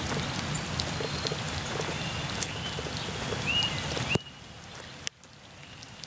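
Steady rain falling on a flooded gravel driveway and its standing water, a dense hiss with scattered drop ticks and a few short high chirps. The sound drops suddenly and sharply in level about four seconds in.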